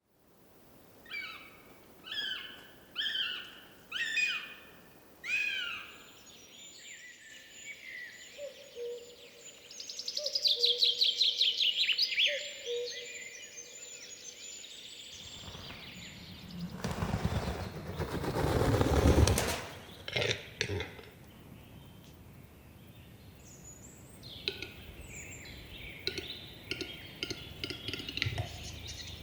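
Wild birds calling and singing: first five separate falling calls about a second apart, then rapid trilling song with a low hooting note beneath it. A loud rushing noise swells up in the middle and cuts off suddenly, and scattered bird calls follow.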